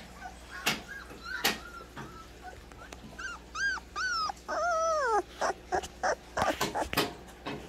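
Great Dane puppy whimpering: a few short high cries about three seconds in, then a longer whine that falls in pitch, with faint squeaks before them. Several short sharp noises are scattered through, most of them after the cries.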